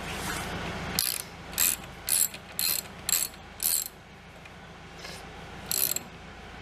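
Socket ratchet wrench clicking in quick back-and-forth strokes, about six at roughly two a second, then a pause and one more stroke near the end, as a fuel pipe fitting is worked.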